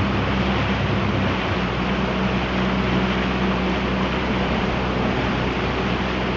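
Boat motor running steadily with a low hum, under a broad steady rush of fast-moving river water and wind.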